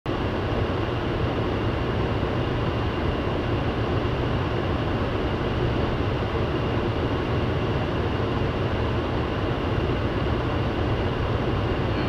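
Steady road and engine noise heard inside a car's cabin while driving on a snow-covered road, a constant low rumble, with the heater blower running on high for defrost and a faint steady high whine.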